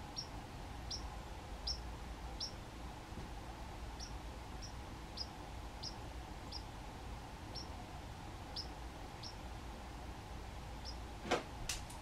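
White-throated sparrow giving short, sharp chip calls, roughly one a second at an uneven pace. Two sharp knocks near the end are the loudest sounds.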